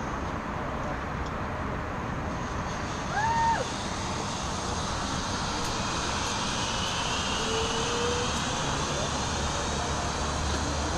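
Steady rushing of wind on the microphone, with a short whistle about three seconds in that rises, holds and drops.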